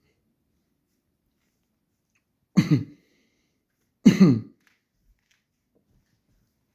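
A man coughing twice, two short voiced coughs about a second and a half apart. It is a cough he is being treated for with antibiotics.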